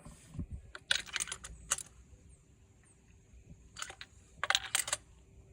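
Quick light clicks and clinks of tools and small parts being handled, in two short bursts, about a second in and about four seconds in.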